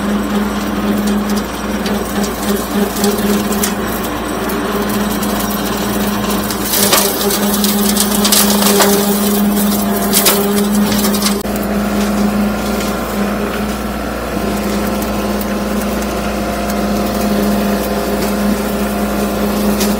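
Bobcat CT2025 compact tractor's diesel engine running steadily under load while brush and wood crack and snap as they are crushed. The cracking is densest from about seven to eleven seconds in.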